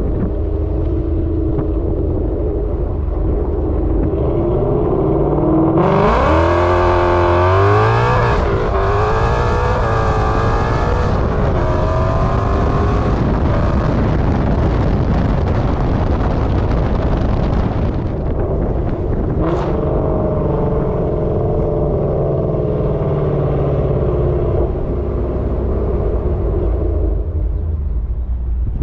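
Ford Coyote 5.0 V8 running through Kooks headers and a Corsa Xtreme cat-back exhaust. It rumbles steadily, rises sharply in pitch about six seconds in as it is revved, wavers at higher revs for several seconds, then settles back to a steady, quieter rumble.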